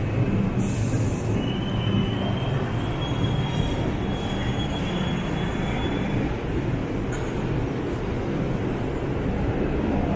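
Subway train running beneath the street, heard from street level as a steady low rumble, with a thin high wheel squeal held for several seconds starting a little over a second in.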